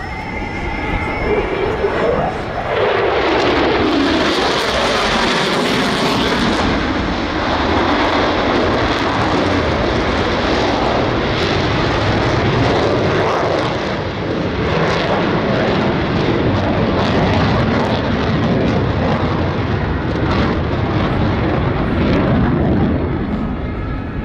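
Loud jet noise from an F-35A's single F135 turbofan as the fighter pulls through a high-g turn and flies by. The noise swells a couple of seconds in, with a sweeping change in pitch, then holds as a steady, crackling rumble.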